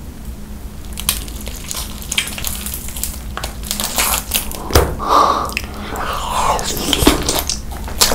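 Close-miked eating: a person biting into and chewing food, with crisp crunches and wet mouth clicks coming irregularly throughout.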